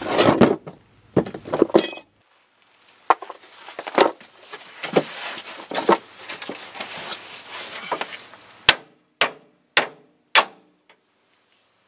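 Metal tools clattering and knocking against the steel steering linkage of a van's front suspension, then four sharp hammer-like strikes on steel about half a second apart near the end, each ringing briefly, as a joint is knocked to break it loose.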